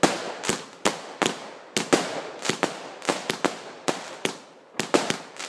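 Maximum Showtime multi-shot firework cake firing a barrage of sharp bangs, about three a second at uneven spacing, each trailing off in a short hiss.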